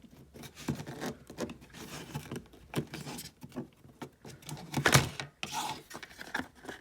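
Hands handling and pulling at plastic packaging around a pair of scissors, trying to get it open: irregular rustling, rubbing and small clicks, with one loud sharp crack about five seconds in.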